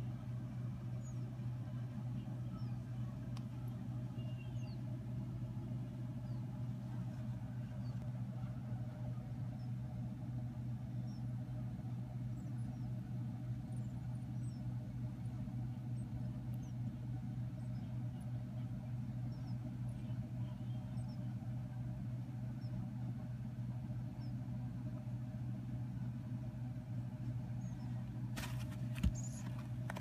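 A steady low hum with faint, scattered high peeps from sleeping African grey parrot chicks, and a few sharp knocks near the end.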